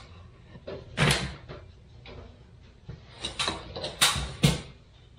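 Several short scraping and knocking noises of wooden baseboard trim pieces being handled while glue is applied to the joint.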